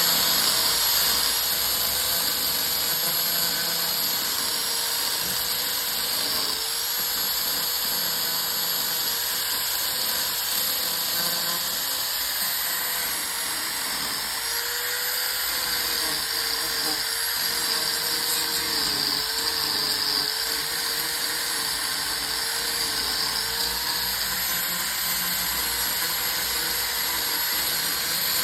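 High-speed rotary tool (grinder/drill type) running continuously with a steady high whine. Its pitch sags briefly again and again as it bites into the work under load.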